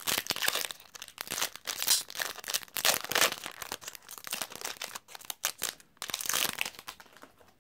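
Foil wrapper of a trading-card pack being crinkled and torn open by hand, an irregular crackling that thins out near the end.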